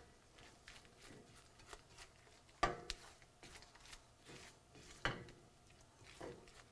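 Rubber spatula quietly scraping and stirring a mushroom and egg mixture around a nonstick skillet, with two sharper knocks of the spatula against the pan about two and a half and five seconds in.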